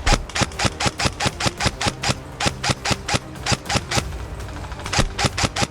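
Airsoft gun firing a rapid string of shots, about six a second, for about four seconds, then a second short string after a brief pause.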